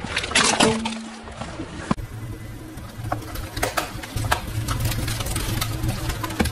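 A car tyre slowly squashing an inflated foil balloon, the foil crinkling and crackling sharply again and again over a low rumble of the tyre and car. Near the start, before this, there is a short burst of crunching and crackling.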